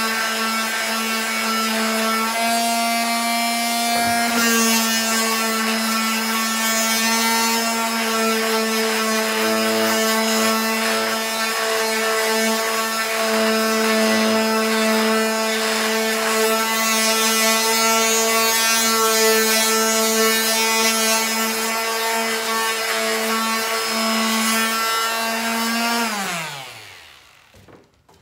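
Electric quarter-sheet palm sander running steadily with its pad pressed on a wooden deck board, sanding off a mill stamp. Near the end it is switched off and its hum falls in pitch as it winds down.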